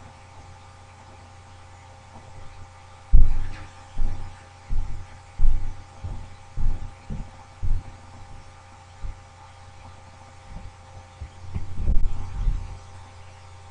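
Irregular dull thuds of computer keyboard keystrokes over a steady electrical hum: about eight spaced strokes a few seconds in, then a quicker cluster near the end.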